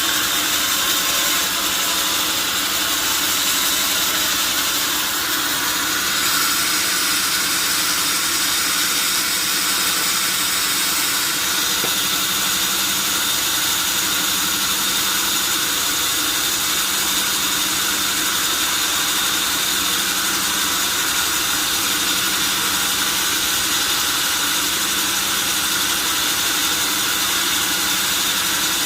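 Sawmill band saw running steadily, with a constant hissing, whining machine noise that does not let up.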